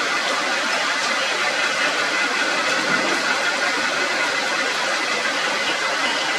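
Heavy rain falling steadily on forest foliage.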